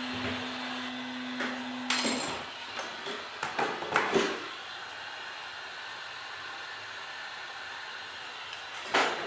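Heat gun blowing steadily while a plastic guitar pick scrapes and clicks against the phone's glass as it is pried off the softened adhesive. A low hum stops about two seconds in, with a sharp click at the same moment and another near the end.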